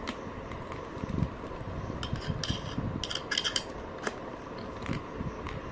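Handling noises as a keyboard and its cable are moved about on a desk: a few sharp clicks, and a cluster of light, rattling clinks about two to three and a half seconds in.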